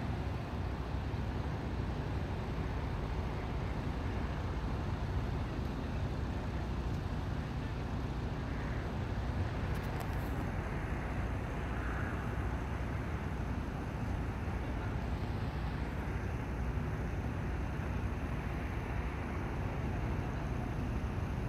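Steady low rumble of vehicle noise, even and unchanging throughout.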